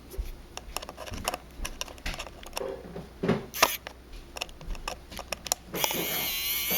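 Small clicks and taps of metal tools and tiny screws, then, near the end, a small electric precision screwdriver's motor starts running with a steady whine as it backs out the Phillips screws of the phone's connector plate.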